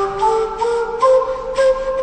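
Background music: a melody of held notes stepping from one pitch to the next.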